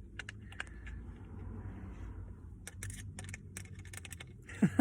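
Small scattered clicks and rattles of a screw being driven by hand into the plastic gear-stick surround trim, whose screw hole is cracked so the screw won't tighten up tidily.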